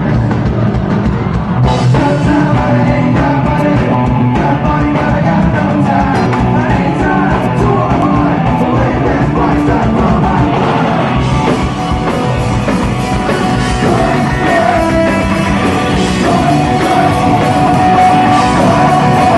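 Punk rock band playing live: loud distorted electric guitars, drum kit and sung vocals, without a break.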